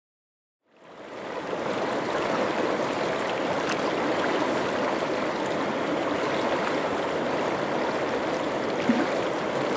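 A fast river rushing over rocks, fading in about a second in and then running steadily.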